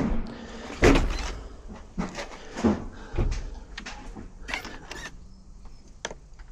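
A UPVC door's multipoint lock mechanism being worked by hand, giving a series of separate, irregular metal clunks and clicks.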